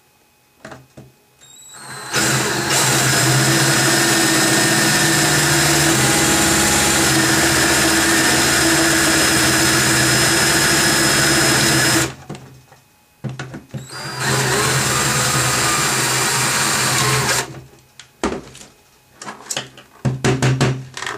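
Cordless drill running steadily for about ten seconds, stopping, then running again for about three seconds, its bit drilling out a copper rivet in a plastic control-board cover. A few short handling clicks follow near the end.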